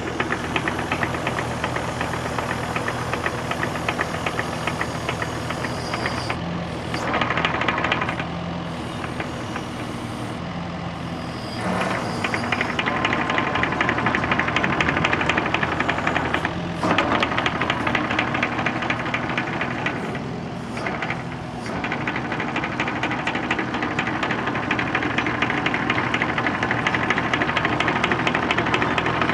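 Engine of a small earth-moving machine running with a knocking rattle, working harder and louder several times, with short easings in between.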